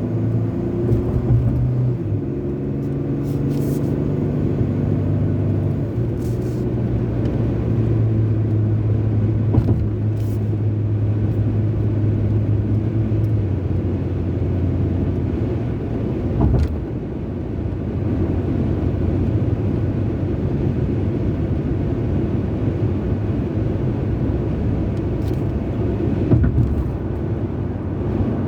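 Car driving at road speed, heard from inside: a steady drone of engine and tyre noise with a low hum that shifts pitch a few times, and a couple of short thumps, one around the middle and one near the end.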